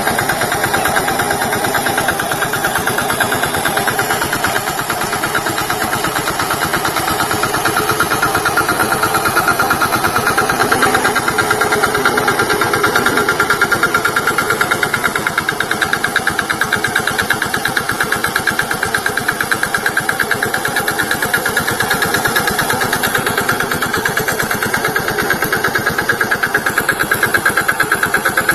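VST Shakti tractor engine running steadily, with a fast, even engine beat.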